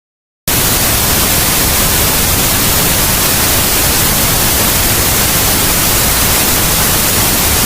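Very loud static hiss, like white noise, that cuts in abruptly from dead silence about half a second in and holds steady and unchanging.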